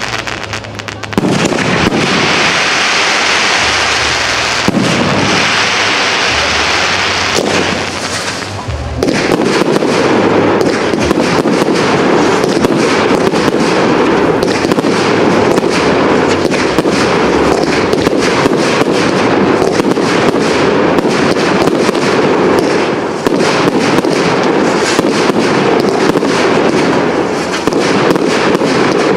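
Aerial fireworks going off: hissing and crackling for the first several seconds, then from about nine seconds in a dense, continuous barrage of rapid bangs and crackle that does not let up.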